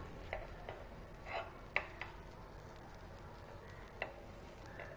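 A few light, scattered taps and scrapes of a utensil cutting a cooked omelette in a frying pan.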